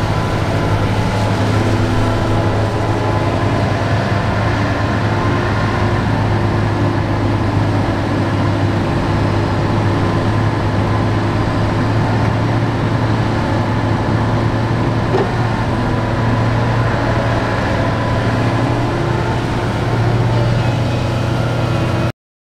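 Doosan DX225LCA crawler excavator's diesel engine running steadily under working load as it digs and loads dirt into a dump truck, with a constant low hum. The sound cuts off abruptly near the end.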